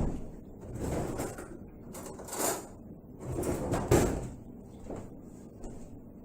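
Kitchen utensils scraping and knocking as shortening is scooped into a mixing bowl of dry ingredients: a knock at the start, scrapes about one and two and a half seconds in, and the loudest knock-and-scrape about four seconds in.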